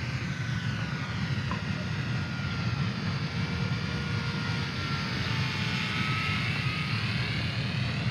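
Eachine Spitfire 400 mm micro RC warbird's electric motor and three-bladed propeller whining in low flight, the pitch swinging up and down as it passes close by, near the start and again about six seconds in. A steady low rumble runs underneath.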